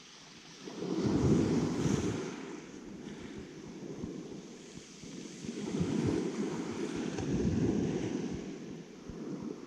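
Wind buffeting the microphone in gusts, a low rumble that swells strongly about a second in and again past the middle, with a faint hiss above it.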